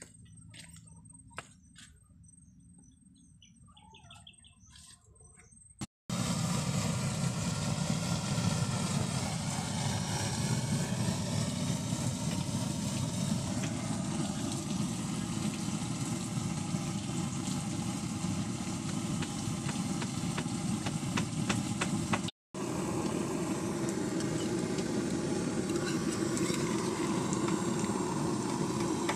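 Steady roar of a pressurised burner heating a wok of oil, with a brief break about two-thirds of the way through. It comes in suddenly after a few seconds of near-quiet with faint ticks and bird chirps.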